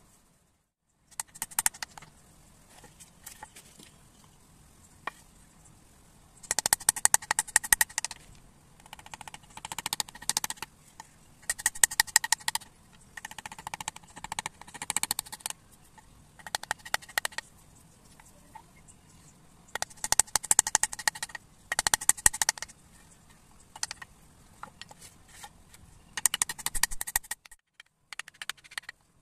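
Wooden mallet tapping a wood-carving chisel in quick runs of light strikes, each run lasting about a second, as the chisel cuts into the wood.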